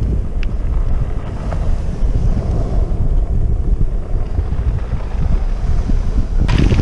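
Wind buffeting the microphone in a heavy, steady rumble, with surf on the shore underneath. A few short clicks, and a busier patch of clicks and rattles near the end.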